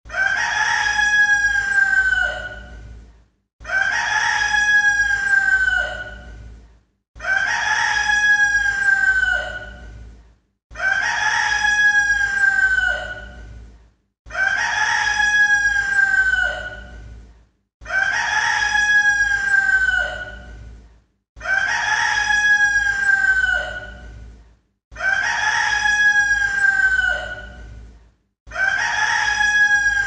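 A rooster crowing, the same crow repeated about every three and a half seconds, nine times over. Each crow lasts about three seconds and drops in pitch at its end.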